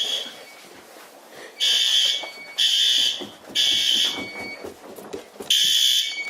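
Fire alarm horns sounding the temporal-3 evacuation signal during a bell test: high-pitched electronic blasts in groups of three, each about half a second long, with a pause of about a second and a half between groups.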